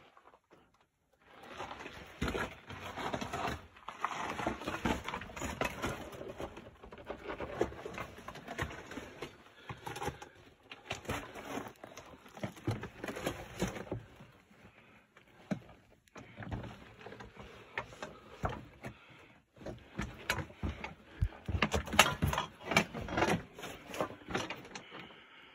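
Irregular footsteps crunching and scraping on loose rock and gravel, with knocks and rustling of handling, in runs broken by short pauses.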